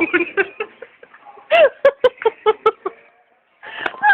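A woman's voice making a quick run of short, repeated high-pitched sounds, about six a second, then a short burst near the end.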